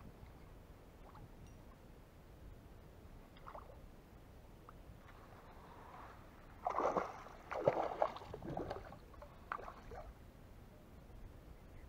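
A hooked zander splashing and thrashing at the water surface as it is played on a spinning rod: a run of irregular splashes starting about halfway through and dying away before the end.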